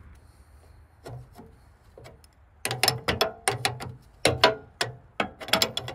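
Steel 7/8 wrench clicking and clinking on a hydraulic hose fitting as the fitting is tightened down. A few faint knocks come first, then from about halfway a quick, irregular run of sharp metal clicks, two to four a second.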